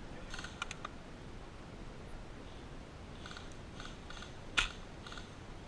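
Scattered faint clicks and ticks: a few just after the start, a run of them from about three seconds in, and one sharper click about four and a half seconds in.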